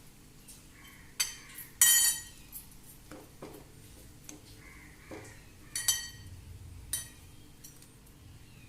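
Kitchen utensils clinking against dishes while bread is dipped in beaten egg: a few sharp, ringing clinks, the loudest about two seconds in and two more around six and seven seconds in.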